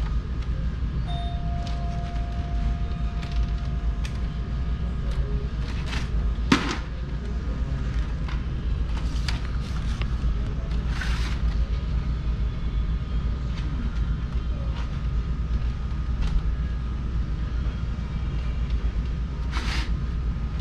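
Steady low hum of store room noise, with scattered clicks and rustles of packaged parts being handled on shelf hooks. A thin steady tone sounds for a few seconds about a second in.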